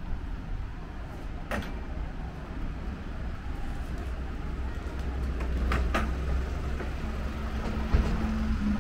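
Street traffic: a low, steady rumble of vehicle engines that grows louder in the second half, with a steady engine hum joining near the end. A few sharp clicks and a thump near the end.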